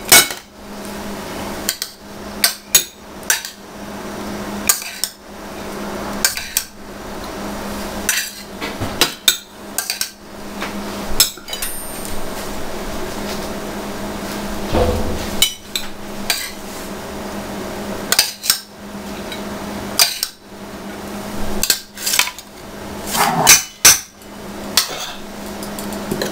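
Metal serving tongs and a spoon clacking and scraping against a metal baking tray, a pot and ceramic plates as food is dished up: many irregular sharp clicks and knocks, in quick clusters near the end.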